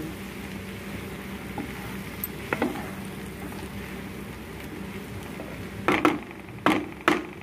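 Cabbage stir-fry sizzling in a metal kadai while a wooden spatula stirs and scrapes through it. Several louder knocks of the spatula against the pan come near the end.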